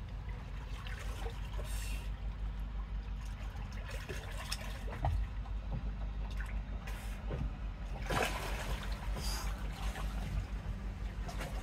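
Lake water splashing and trickling as a swimmer paddles up to a motorboat's stern, with louder splashes about eight seconds in as he reaches the swim ladder.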